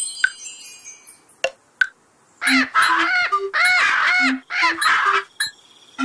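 Cartoon bird sound effect: three quick groups of harsh squawking caws, starting about two and a half seconds in, with short soft low musical notes between them. A chime shimmer fades out in the first second.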